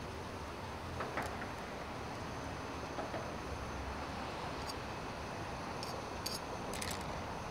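Chopsticks stirring noodles in a metal camping pot of hot water, giving a few light clicks against the pot, mostly in the second half, over a steady rushing background noise.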